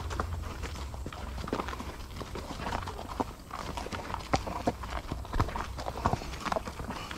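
Horses walking on a dirt trail, hooves falling in an uneven clip-clop of soft knocks, a few sharper strikes a little past halfway.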